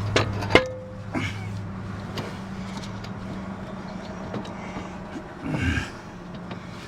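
A few sharp metallic clinks and knocks in the first second or so, one of them ringing briefly, over a steady low hum.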